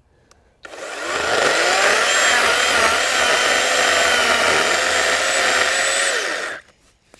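Greenworks Digipro 40V brushless cordless chainsaw cutting into the base of a small tree trunk, making the felling notch. It is an electric motor-and-chain whine with no engine note. It starts about half a second in, comes up to full speed within a second, runs steadily under load, then drops in pitch and cuts off suddenly near the end.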